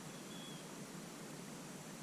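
Faint steady hiss of background noise, with one brief, faint high-pitched chirp about a third of a second in; no horn is sounding.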